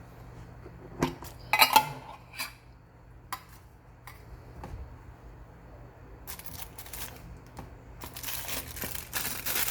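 Sharp clicks and taps of small packaging pieces being handled in the first few seconds, then plastic wrapping crinkling and rustling, loudest near the end, as a watch is unwrapped.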